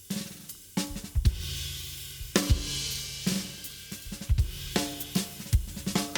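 Acoustic drum kit being played: bass drum, snare and cymbals in a loose groove, with a sustained cymbal wash in the middle and a run of ringing drum hits near the end.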